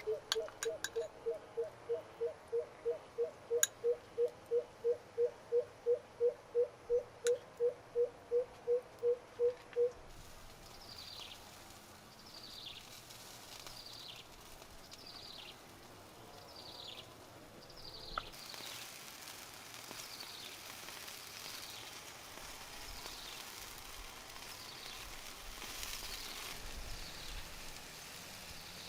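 Animal calls: a pitched pulsing call repeated about three times a second for roughly ten seconds, which stops abruptly, followed by short high falling chirps about once a second over faint outdoor background noise.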